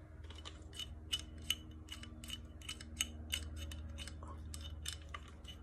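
Faint, irregular light clicks and ticks, a few a second, from an AR-15 lower receiver being handled and turned over in the hands, over a low steady hum.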